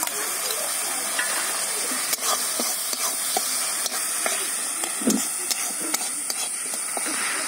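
Tomato and spices frying in mustard oil in a kadai, a steady sizzling hiss, with a metal spatula scraping and knocking against the pan as it stirs, the loudest knock about five seconds in.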